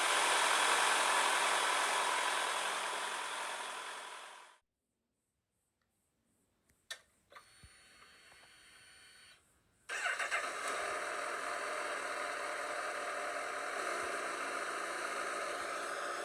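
A loud steady noise fades out over the first four seconds. After a silence come a few clicks and a faint steady whir, then the Honda CB1000R's inline-four engine starts about ten seconds in and settles into a steady idle.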